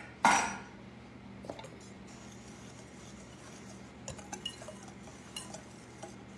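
Wire whisk stirring flour and sugar in a glass mixing bowl: one louder clink against the glass near the start, then quiet with light, scattered ticks of the wires on the bowl.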